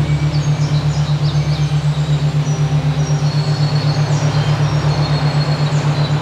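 A low humming tone pulsing evenly about eight times a second, a binaural-beat meditation tone, with songbirds chirping and whistling high above it.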